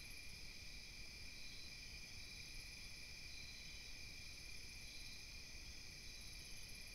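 Faint, steady chorus of night insects, crickets trilling at several pitches at once, the highest trill pulsing and swelling near the end.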